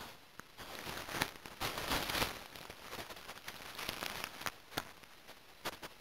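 A European badger nosing and brushing against the trail camera at close range: irregular scratchy rustles with sharp clicks, loudest about two seconds in.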